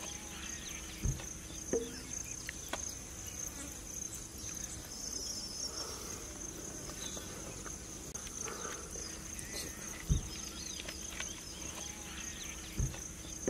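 Steady high-pitched insect chorus, with a few dull thumps and light taps as foil food trays and foil parcels are handled on a metal platter.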